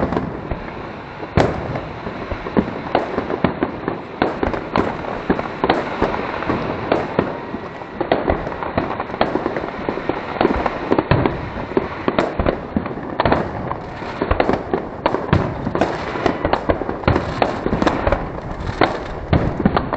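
Fireworks salute going off in a dense, unbroken barrage of bangs and crackles, several reports a second.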